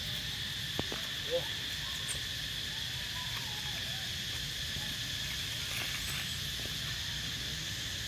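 Steady, high-pitched insect chorus buzzing at two pitches, over a low rumble. A faint click comes about a second in, followed shortly by a brief squeak.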